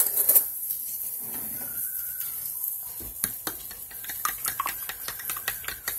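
Eggs being beaten in a bowl: rapid clicking strokes of a metal utensil against the bowl, starting about halfway through after some clattering of utensils.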